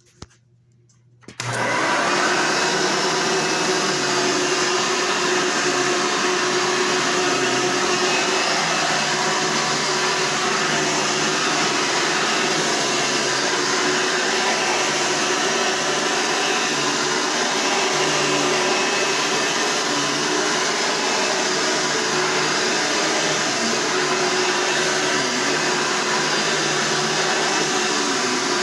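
A Hoover Soft & Light upright vacuum cleaner switches on sharply after about a second and a half of quiet, then runs steadily at one speed: a constant motor hum under a loud rushing of air.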